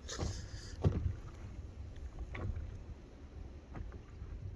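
Sea water sloshing and splashing in the shallows, with a few short splashes over a steady low rumble.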